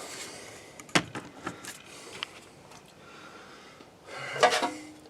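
Light ticks and one sharp click about a second in as metal RV furnace parts and fittings are handled, then a short voice-like sound near the end.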